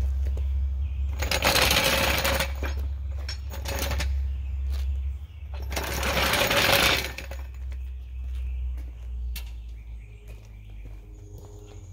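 Daytona 3-ton low-profile floor jack being rolled across rough concrete, its wheels rattling in two pushes of about a second and a half each, over a steady low rumble.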